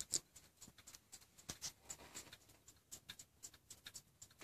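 Faint, light ticking of an antique French 8-day clock movement: a quick run of small clicks, several a second.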